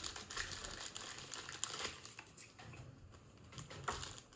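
Blind-box packaging being handled and opened by hand: irregular crinkling and crackling, busiest in the first two seconds, with a sharper click near the end.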